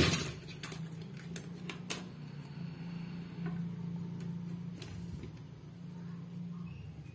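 Scattered soft clicks and rustles as fingers move through the leaves and moss of a mounted Bulbophyllum orchid, the sharpest at the very start and a cluster in the first two seconds, over a steady low hum.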